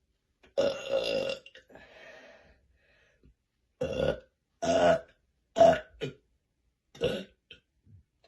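A woman burping. There is one long burp about half a second in and a fainter one after it, then a run of five or six short burps.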